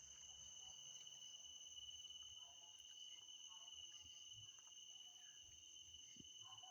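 Faint, unbroken high-pitched chirring of insects, a single steady trill.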